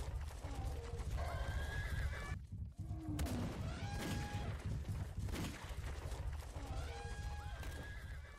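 Stampede sound effect: a dense, steady low rumble of many animals' running footfalls, with a few pitched animal calls rising over it about a second, four seconds and seven seconds in.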